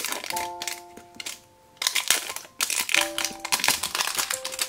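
Crinkling of plastic wrapping as a plastic toy tub is handled in the hands, in irregular crackling bursts over light background music.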